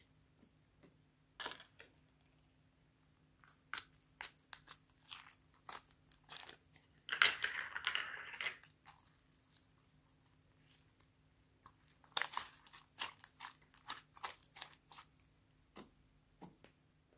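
Slime being squished and kneaded by hand: clusters of sticky crackling and popping clicks, with a longer tearing crackle about seven seconds in as a lump of pink slime is pulled and stretched apart.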